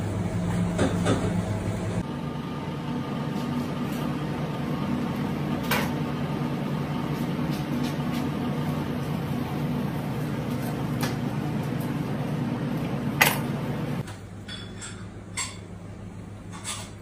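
Steady low hum of a commercial kitchen with a few sharp clicks and knocks of utensils; the background hum changes abruptly twice.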